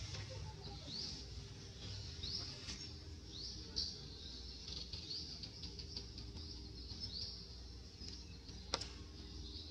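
Outdoor wildlife ambience: a high, short chirp rising quickly in pitch, repeated about once a second, over a steady high hiss of insects and a low rumble. There is one sharp click near the end.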